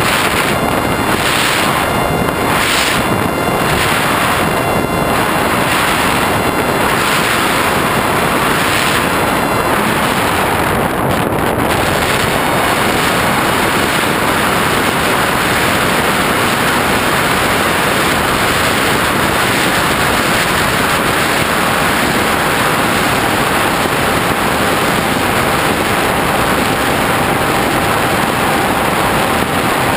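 Loud, steady rush of airflow over the onboard camera of a flying FPV wing, with the wing's motor and propeller tone faintly beneath it. The rush pulses regularly for the first third, then runs even.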